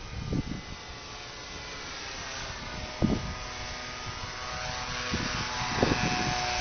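Propeller motor of a radio-controlled model airplane running steadily in flight, growing louder, with wind thumping on the microphone several times.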